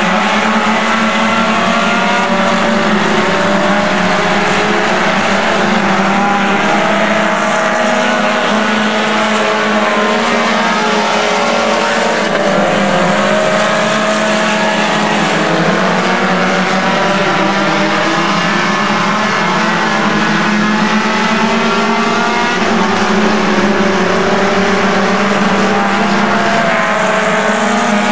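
A pack of front-wheel-drive Stinger-class compact race cars running hard on a dirt oval. Several engines overlap into a loud, steady din whose pitch keeps rising and falling as the drivers get on and off the throttle through the turns.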